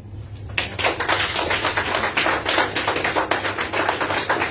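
A small audience applauding. The clapping starts about half a second in and keeps up as a dense run of claps.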